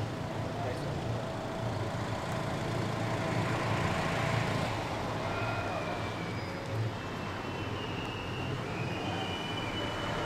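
Steady low rumble of vehicle engines and traffic with a background hiss, and a few faint thin high tones in the second half.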